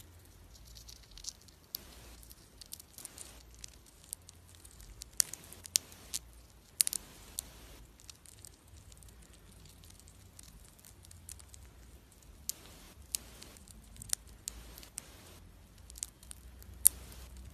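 Hamster nibbling seeds: irregular small sharp crunches and clicks of shells cracking, coming in clusters, with soft rustling between them.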